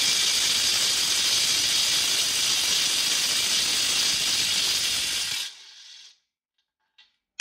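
Impact wrench running in reverse, hammering steadily on a tightly torqued bolt to loosen it. It stops abruptly about five and a half seconds in.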